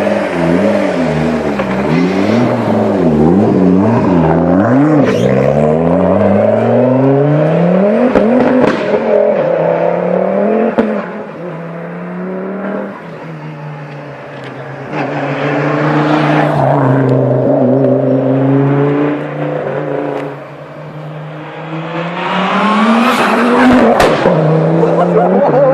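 Race car engine revved in quick repeated blips, then running at a lower, steadier speed between further rises in revs.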